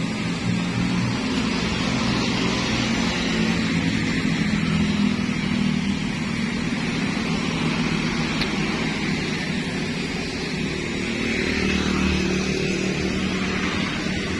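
Motorcycles passing on the road, their engines swelling and fading as they go by, loudest about five seconds in and again near the end, over a steady hiss of traffic.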